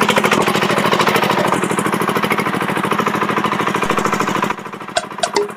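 Crawler rotary cultivator's engine running with a rapid, even beat as the machine drives along. About four and a half seconds in it cuts off abruptly, giving way to a ticking sound effect with short tonal beeps.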